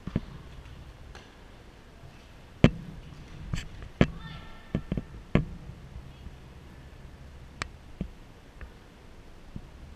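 Tennis rally on a hard court: sharp pops of a tennis ball struck by rackets and bouncing on the court, irregularly spaced, thickest between about two and a half and five and a half seconds in, with a few more near the end. A brief squeak comes about four seconds in.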